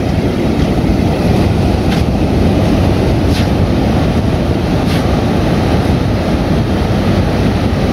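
Ocean surf breaking on a beach, mixed with wind buffeting the microphone as a steady low rumble.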